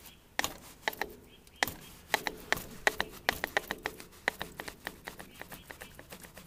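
Hand-tool work on a tractor loader's hydraulic control valve: a run of sharp clicks, a few at first, then quickening to several a second and growing fainter toward the end.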